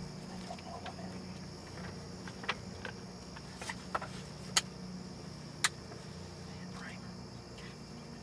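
Steady high-pitched insect drone over a low background hum, with five or six sharp clicks through the middle, the loudest about four and a half and five and a half seconds in.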